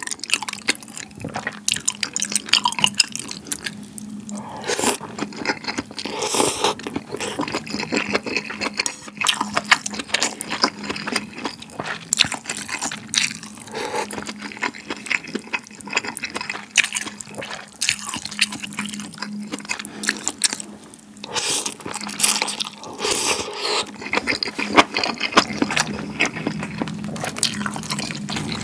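Close-miked wet eating sounds: slurping and chewing malatang noodles in broth, with many short irregular wet smacks.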